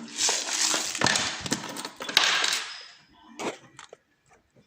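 Scraping, rattling and sharp clicks of a pin-tumbler challenge lock being taken apart by hand, its small metal parts knocking on a hard surface. The noisiest stretches come about a quarter second in and again around two seconds, with a few scattered clicks near the end.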